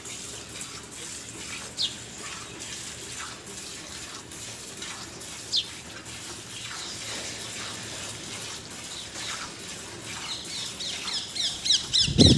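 A cow being hand-milked: streams of milk squirting into a steel bucket, a steady, rhythmic hissing splash. A bird chirps briefly twice.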